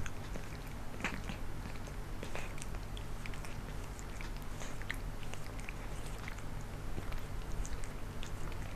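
Domestic cat grooming itself: a run of small, irregular wet licking and nibbling clicks at its fur, over a steady low hum.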